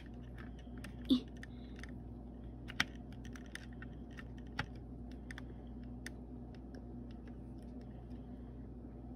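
Small screwdriver driving a screw into a plastic wheel of a model steam engine kit: scattered light clicks and ticks of the driver and plastic parts, a few sharper ones about 1, 3 and 4.5 seconds in, over a low steady hum.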